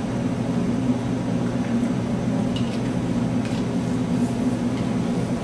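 A steady low hum, with a few faint light clicks about two and three seconds in.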